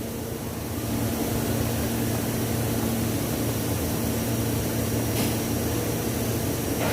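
Common-rail (CRDI) diesel engine idling steadily, a low even hum.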